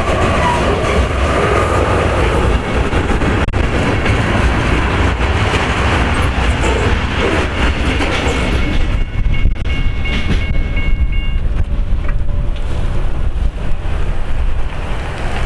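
Freight train cars rolling past with a heavy rumble and wheel clatter over the rail joints. A thin, high steel-on-steel wheel squeal rings for a couple of seconds about two-thirds of the way through.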